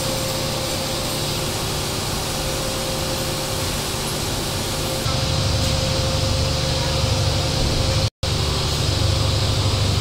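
Steady running noise of pasta-plant machinery with a constant hum. About halfway through it turns louder and deeper as the paddle mixer stirs flour, with a brief dropout near the end.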